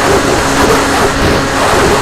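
RC plane in flight: a steady rush of wind and propeller noise with a low motor hum that briefly drops out about half a second in.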